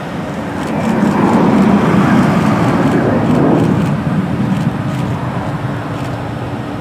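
Airbus A319's twin CFM56 turbofan engines at takeoff thrust during the takeoff roll: a roar that swells about a second in and eases off after about four seconds as the jet rolls past, with a steady low hum underneath.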